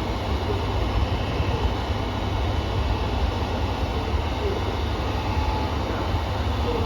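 KiHa 200 diesel railcar idling at the platform: a steady low engine rumble with a broad hiss above it. The car KiHa 200-1551 is making an abnormal noise throughout, the fault that took the unit out of service the next day.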